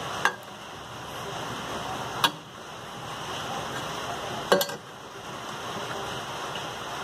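Three sharp knocks or clicks about two seconds apart, the last one doubled, over a steady hiss.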